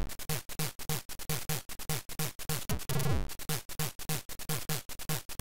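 ZX Spectrum demo chip music playing a drums-only passage: a fast, even run of short noisy hits with a falling-pitch kick sweep about twice a second.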